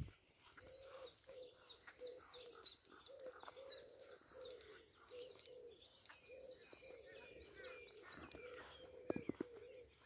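Dawn chorus of wild birds: a low coo repeats about twice a second throughout, while songbirds sing high chirps and a fast trill. A few sharp clicks come near the end.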